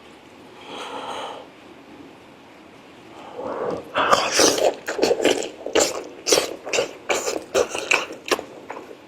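Close-miked eating: chewing and lip-smacking on braised pork leg, a soft breath about a second in, then a quick, dense run of wet mouth clicks and smacks from about three and a half seconds in.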